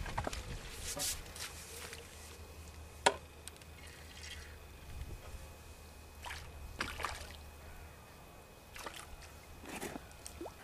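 Small irregular splashes and drips of water at the margin as a hooked fish thrashes at the surface and a landing net is dipped in, over a low steady rumble.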